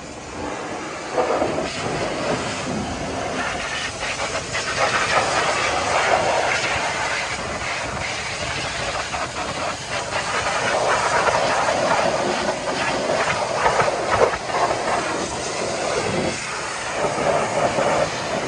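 High-pressure washer jet blasting mud off an off-road tyre, wheel arch and alloy rim: a loud hiss of spray that swells and dips as the jet sweeps between rubber, fender flare and metal.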